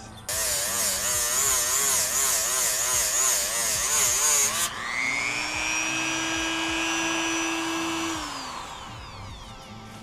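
Hyper Tough rotary tool grinding the paint off a supercharger's aluminum case down to bare metal, its pitch wavering under load. About five seconds in it comes off the work and runs free with a steady high whine, then winds down with a falling pitch near the end.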